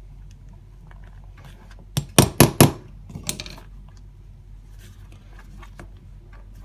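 Hammer striking the setting tool of a snap-button kit, driving a press-stud onto a metal backing plate: four quick blows about two seconds in, the first lighter, then a weaker knock. Faint clicks of the fastener being handled follow.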